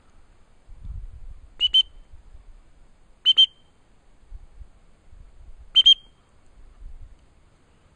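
A dog whistle blown as three double blasts a couple of seconds apart, each a pair of short, sharp, high-pitched pips, as used to signal hunting setters.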